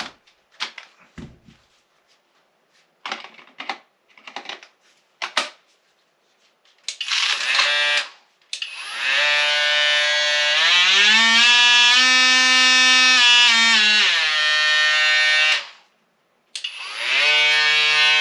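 Skil PowerCore cordless oscillating multi-tool, first a few switch clicks and handling knocks, then its motor running with a steady whine. The pitch climbs as the speed is turned up, holds at the top, then drops back down before it cuts off. It runs again briefly near the end.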